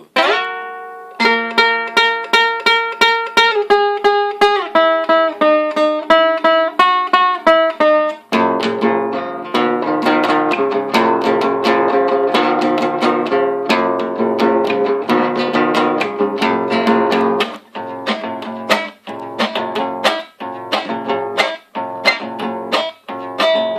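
Instrumental intro on a plucked acoustic string instrument. It opens with a picked single-note melody, then from about eight seconds in fills out into a rapid strummed rhythm of chords over bass notes. Toward the end it breaks into short, accented strums with brief gaps.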